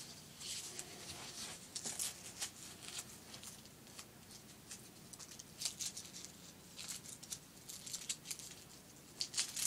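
Light rustling and scattered small clicks of an archery release aid being handled and strapped onto the wrist.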